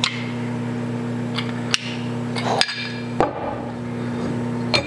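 Two-piece metal lure injection mould being opened and handled: about half a dozen sharp metallic clicks and clacks as the halves come apart, over a steady low hum. The plastisol inside is still hot.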